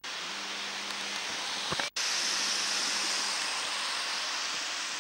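Steady rushing hiss, with a brief dropout about two seconds in.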